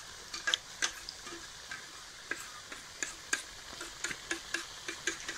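Maida-dough shawarma cups deep-frying in hot oil: a steady sizzle with irregular pops and crackles. They are being refried briefly so their insides cook through.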